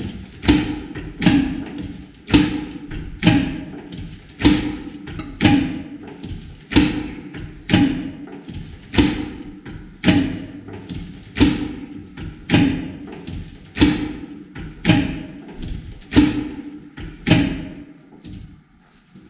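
Corliss engine valve gear rocked by hand with a bar, giving a regular clacking about twice a second, every other clack louder: the admission valves being released and snapped shut by their vacuum dashpots, with the governor set for short admission as under a light load. The clacking stops near the end.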